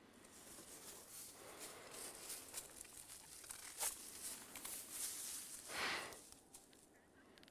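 Faint rustling and crunching of dry fallen leaves underfoot and of clothing as a person shifts and sets his stance, with a sharp click a little before four seconds and a louder short rush near six seconds.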